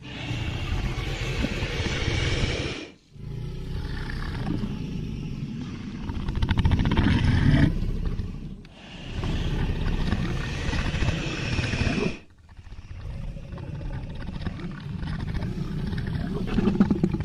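Dragon growl sound effect: a deep, rough creature growl repeated in about four long stretches of a few seconds each, with short breaks between them.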